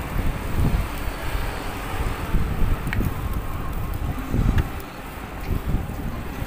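Wind buffeting the microphone of a camera on a moving bicycle: an uneven, gusty low rumble, with road noise underneath.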